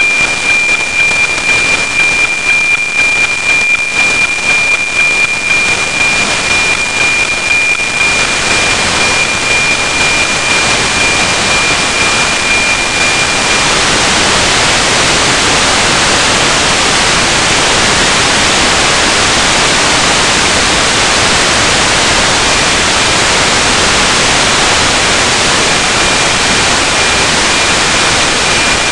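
NOAA 19 weather satellite's APT signal through the radio receiver: a steady high tone ticking about twice a second under heavy static. The tone fades out about halfway through, leaving plain hiss, as the weak signal is lost on a low pass.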